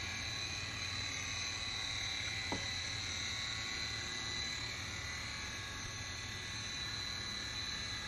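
Steady low hum of a battery-powered pool vacuum running under water, with a steady high buzz over it. There is one short tick about two and a half seconds in.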